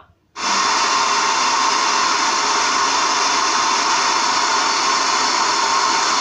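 Loud, steady hiss of FM radio static from a portable flashlight charging speaker switched to radio mode, untuned. It starts abruptly about half a second in and stays even.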